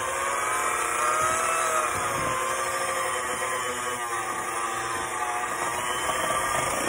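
Electric hand mixer running steadily, its beaters churning flour into a wet batter in a metal bowl. The motor's whine wavers up and down in pitch as the load changes.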